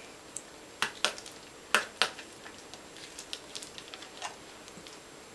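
Plastic bottle of hydrogen peroxide being uncapped and handled: a few sharp clicks and taps in the first two seconds, then lighter ticks.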